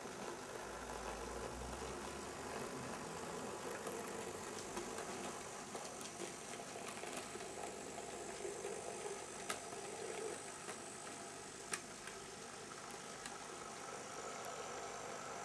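Z scale model freight train running along the track: a steady rattle and hum of the tiny wheels and locomotive motor on the rails, with a few sharp clicks, the two loudest a couple of seconds apart past the middle.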